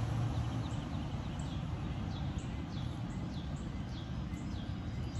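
A bird calling over and over, a quick run of short downward-slurred chirps about three a second, over a steady low background rumble.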